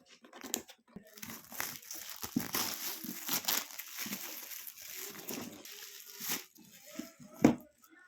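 Crinkling and crackling from hands handling a slime and sand toy kit, with many small clicks and one sharp click near the end.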